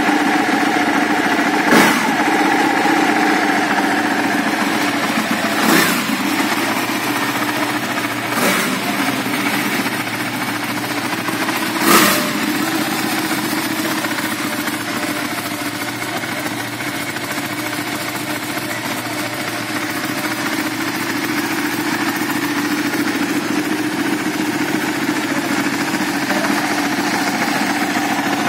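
Ducati Panigale 1299 S's 1285 cc Superquadro L-twin engine running steadily at idle in neutral, with four short sharp bursts in the first twelve seconds, the last about twelve seconds in and the loudest.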